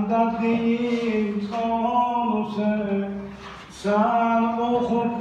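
A man singing unaccompanied in long, held, wavering notes, in the manner of an Azerbaijani mourning lament (noha) for Husayn. He falls off briefly about three and a half seconds in, then starts a new phrase.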